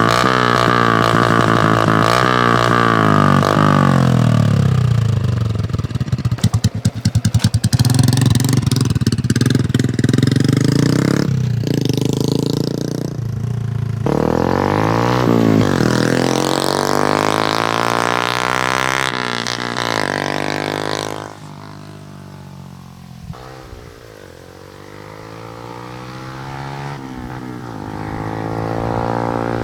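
Motorcycle with a Charama 9 replica conical exhaust running on a test run, its engine note repeatedly rising and falling as it revs and changes gear, with a short run of rapid pops about six seconds in. The sound drops away about two-thirds of the way through and grows louder again toward the end.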